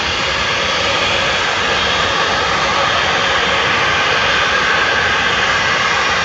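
Small business jet's turbofan engines running, a loud, steady rushing jet noise.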